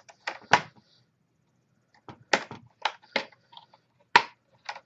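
Plastic laptop screen bezel being pried off by hand, its clips snapping loose in a series of sharp irregular clicks, about seven in all.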